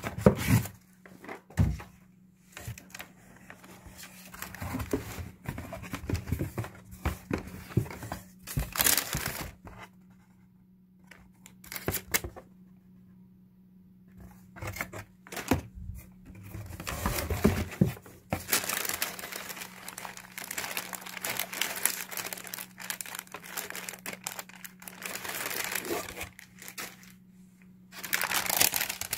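Paper and tissue-paper wrapping rustling and crinkling under a hand, in irregular bursts with pauses and a few sharp knocks of box handling.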